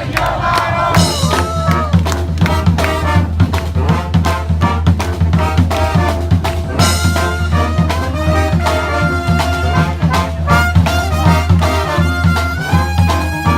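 Brass band playing: horns over a steady drum beat and a low bass line.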